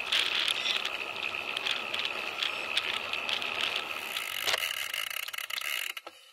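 A bicycle's rear freehub ratchet buzzing steadily as the bike coasts, with tyre hiss on wet tarmac, heard close up from a camera mounted on the bike. The sound drops away sharply near the end.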